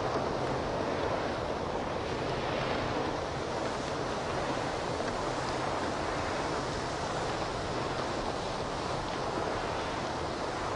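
Steady rushing of a dry rice-soy blend pouring off the end of a cleated conveyor belt onto a hopper's grate, over a low hum from the conveyor's motor.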